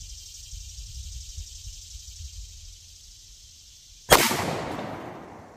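A single .45 ACP pistol shot from a Ruger 1911 about four seconds in: a sharp crack that trails off in an echo fading over about a second and a half.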